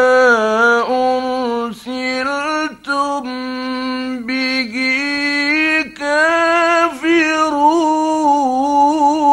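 A man's voice reciting the Quran in the drawn-out, ornamented mujawwad style: long held notes that waver and turn in pitch, broken by a few short pauses for breath.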